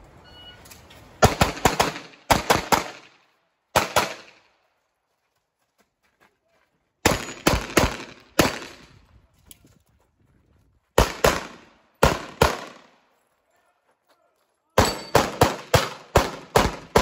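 A shot timer's start beep, then pistol fire in quick strings. Pairs and bursts of two to four shots are spaced a second or more apart as the shooter moves between positions, and a faster string of about eight shots comes near the end.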